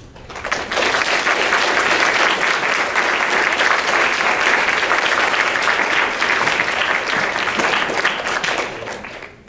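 Audience applauding, starting about half a second in, holding steady and dying away near the end.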